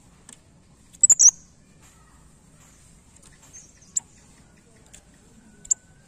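Caged blerengan, a small olive-and-yellow warbler, giving short, very high, sharp chirps: a quick burst of three about a second in, then single chirps a little before the middle and again near the end.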